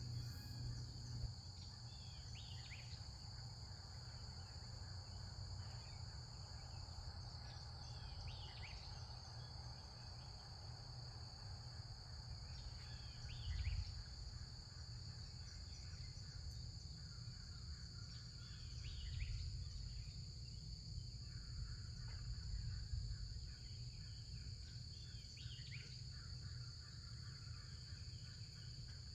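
Birds calling outdoors, short sweeping calls every few seconds with a stretch of chattering in the second half, over a steady high drone of insects and a low background rumble.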